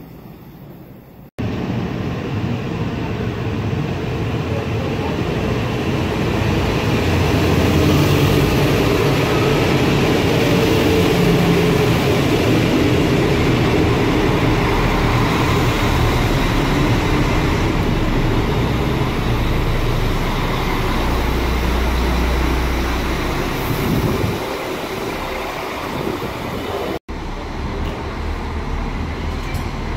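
A train passing on the track: rumbling wheel-on-rail running noise that builds, holds loud for a long stretch and eases off after about twenty seconds. Abrupt jumps to other scenes come about a second in and near the end.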